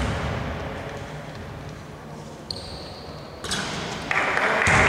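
A basketball bounces once on the hardwood court at the free-throw line. A lull follows, with a short high squeak about two and a half seconds in. A sharp sound comes about three and a half seconds in, and a loud rushing noise from about four seconds in as the free throw is in the air.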